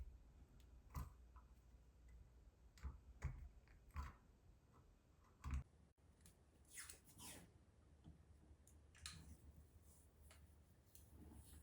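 Faint handling noises of electrical work on a GFCI outlet: a few separate clicks and taps, then brief scraping sounds about halfway through.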